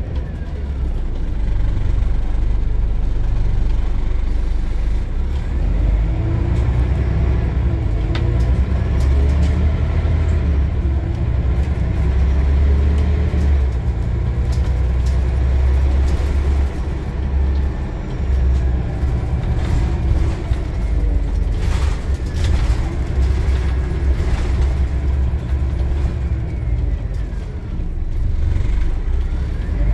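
Scania bus engine and drivetrain heard from inside the passenger saloon while under way: a deep steady rumble with a whine that rises and falls as the bus gathers speed and slows, and a few sharp knocks about two-thirds of the way through.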